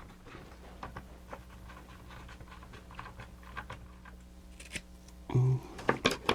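Faint, scattered clicks and light rustling as small plastic parts of a mechanical animated display are handled and fitted together. A louder cluster of sharp handling noises comes about five seconds in.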